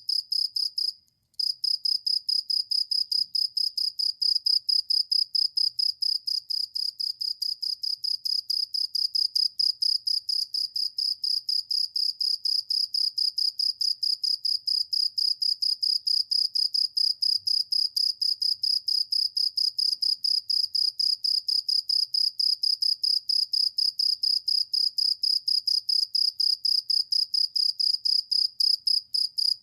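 A cricket chirping loudly in a fast, even train of high pulses, about four or five a second, broken once by a short pause about a second in.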